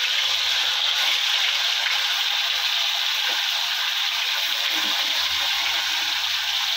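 Whole bhola fish frying in smoking-hot oil in a kadai, a loud, steady sizzling hiss.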